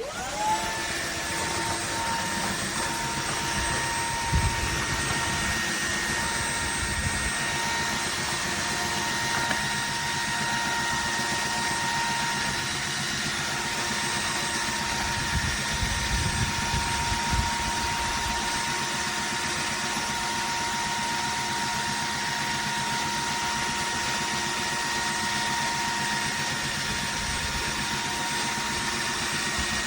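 Dreame H14 cordless wet-dry vacuum mop running in auto mode: a steady motor whine with a rushing suction sound. Low rumbling swells come in about four seconds in and again a little past the middle.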